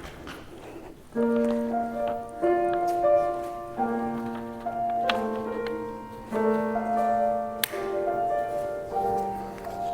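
Slow piano music begins about a second in, with sustained chords and melody notes changing roughly every second.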